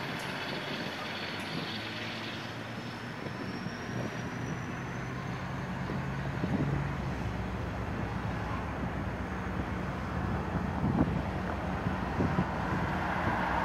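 EMD GP40-2 diesel locomotive's turbocharged 16-cylinder engine running steadily at low throttle as the locomotive moves slowly.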